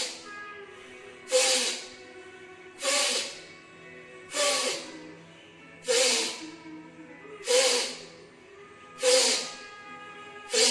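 A man breathing out forcefully in short, sharp blasts, eight of them about one and a half seconds apart, during a yoga breathing exercise. Each blast starts suddenly and fades within about half a second. Soft background music plays underneath.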